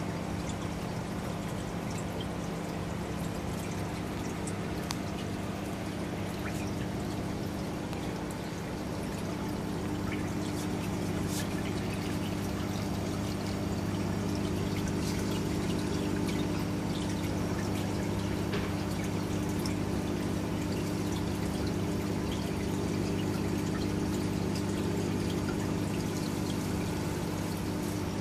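Water pouring and splashing steadily into a reef aquarium's sump refugium from a pipe, with a steady low hum underneath, a little louder from about ten seconds in.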